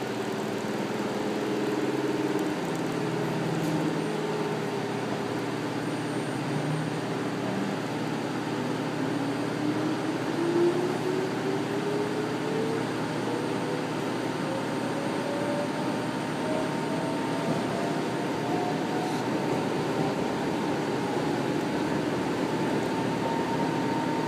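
Ex-Keio 3000-series electric railcar pulling away from a station, heard from inside the car: the traction motors' whine climbs steadily in pitch from about a quarter of the way in as the train accelerates, over the steady rumble of the car running.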